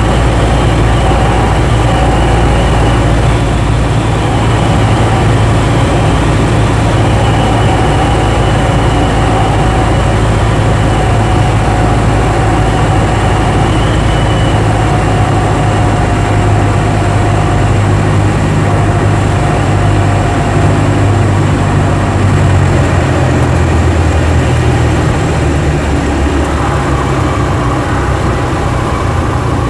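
Cessna 172's four-cylinder piston engine and propeller running steadily, heard from inside the cabin, with the engine note shifting a little higher about two-thirds of the way through.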